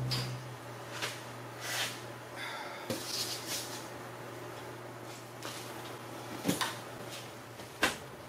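Plywood panels and clamps being handled on a workbench: brief rustles and a few sharp wooden knocks, the loudest near the end, over a faint steady hum.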